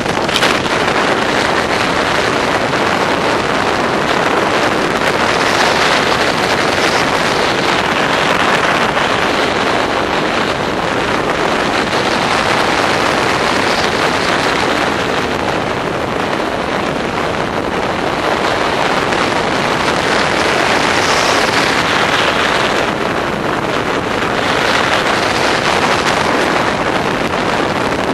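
Wind rushing over the microphone of a paraglider pilot in flight, a loud, steady roar of airflow that swells and eases every few seconds.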